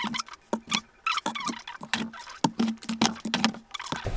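Takeaway food containers and a cardboard delivery box being handled: a busy string of taps, clacks and knocks as lidded plastic and paper containers are lifted out and set down on a wooden table, with scratchy rustling of cardboard between them.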